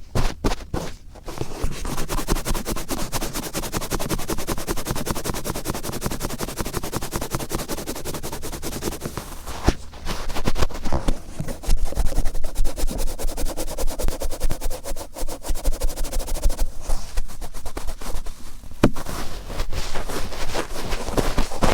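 Cotton swab twisted and rubbed firmly in the right ear, a dense, rapid scratching and rustling. It pauses briefly about ten seconds in, then comes back louder.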